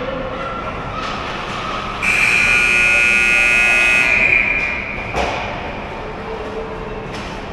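Ice rink game buzzer sounding once, a loud steady high-pitched blare of about two seconds that starts and stops abruptly, over the steady background noise of the arena. A single sharp knock follows a second later.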